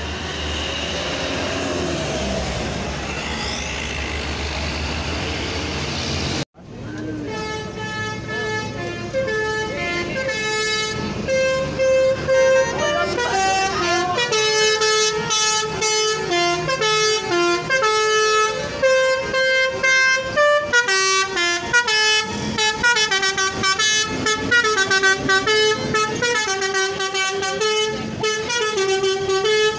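A few seconds of road and engine noise, then a multi-tone Basuri V3 'telolet' bus horn playing a melody of quick stepping notes.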